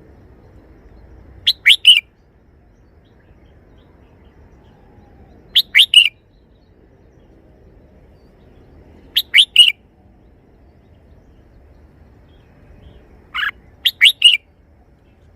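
Red-whiskered bulbul singing its short three-note song phrase four times, about once every four seconds; the last phrase has an extra lead note.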